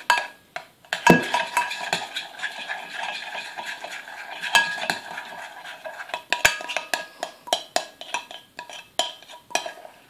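Metal spoon stirring glue and liquid starch as it thickens into slime in a glass Pyrex jug: repeated sharp clinks of the spoon against the glass, with steady scraping between them in the first half. It stops near the end.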